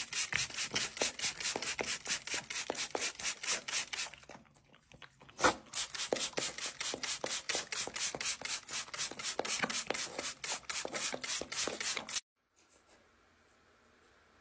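A French bulldog licking rapidly at a hard object, a fast steady run of wet licks at about five a second, with a short pause about four seconds in. It stops abruptly about twelve seconds in, leaving only faint hiss.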